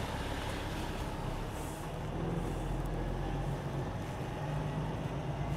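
Semi truck's diesel engine running, heard from inside the cab as the rig rolls slowly forward: a steady low rumble that rises a little about two seconds in.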